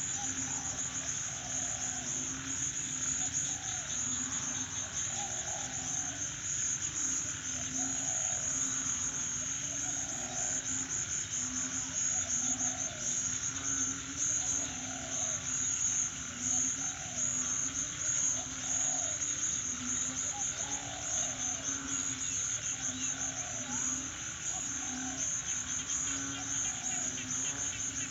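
Crickets chirring steadily with a high, continuous trill, while frogs call over and over, roughly once a second, in the chorus that follows heavy rain.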